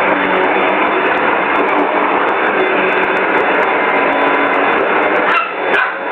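Vacuum cleaner running steadily with a whining hum, a short dip with a couple of knocks near the end.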